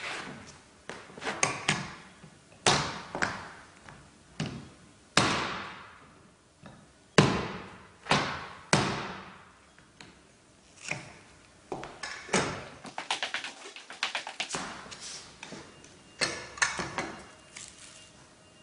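Hammer blows on a metal pull bar, knocking a Parky parquet floorboard into place: about a dozen sharp, ringing strikes at uneven intervals, the loudest about seven seconds in, followed by a quicker run of lighter taps.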